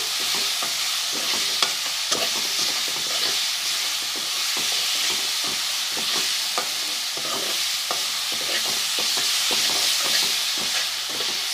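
Onion, ginger-garlic and ground-spice masala sizzling in hot oil in a pan while a spoon stirs it, scraping and clicking against the pan, as the masala is sautéed (bhuna).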